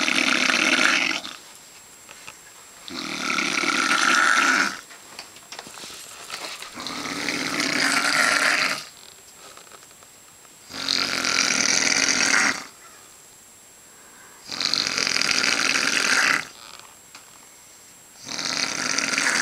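A heavy-set man snoring loudly in his sleep: about five long snores, each under two seconds, coming about every four seconds.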